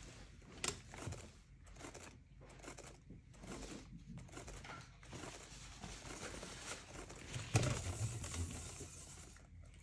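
Faint rustling and scattered ticks as a wet acrylic-poured canvas is spun by hand on a turntable over a plastic drop cloth, flinging off excess paint; a soft knock about seven and a half seconds in.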